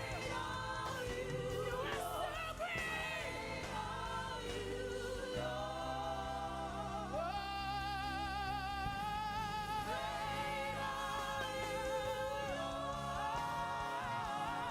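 Gospel worship music: singers with vibrato, with long held notes in the middle, over steady sustained keyboard chords.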